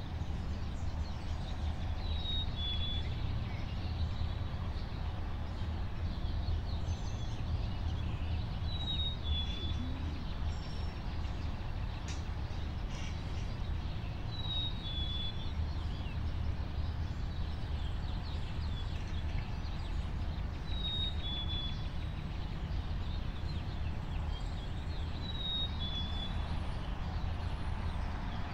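Early-morning suburban ambience: a steady low background rumble with a songbird repeating a short, high two-note call, the second note a little lower, about every five to six seconds. Fainter chirps and thin high whistles come and go, more of them near the end.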